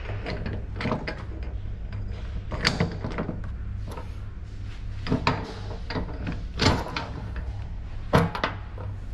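Metal tools and engine parts knocking and clanking irregularly during hose fitting, with several louder knocks spread through, over a steady low hum.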